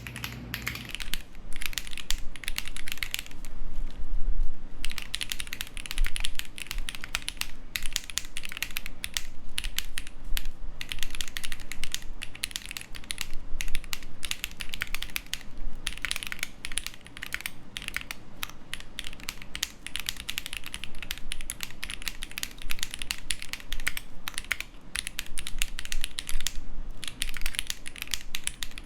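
Typing on a Ginkgo65 custom mechanical keyboard with Lotus switches and GMK keycaps: a fast, continuous stream of keystroke clacks, with short pauses about four seconds in and again near the end.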